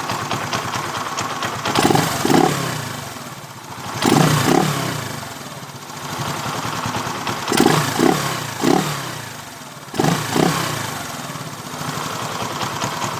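Small motorcycle engine idling, revved in short throttle blips several times, its pitch rising and falling back each time. The engine's cam chain runs on a freshly adjusted manual tensioner meant to cure its ticking and knocking.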